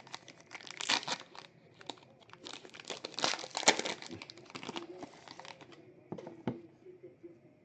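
Trading card pack wrapper being torn open and crinkled by hand, a run of irregular crackles and rips that thins out after about six seconds.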